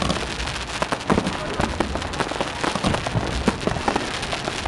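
Fireworks display going off in quick, irregular succession: a dense run of pops and crackles with a few sharper reports among them and no pause.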